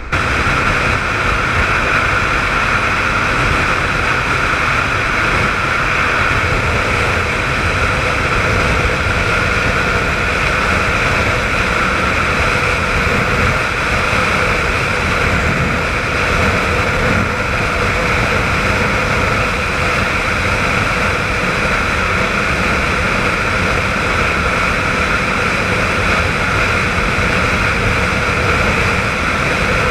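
Suzuki RF400 inline-four sport bike under way at a steady cruising speed: engine running under a loud, even rush of riding noise, with no marked revving or gear changes.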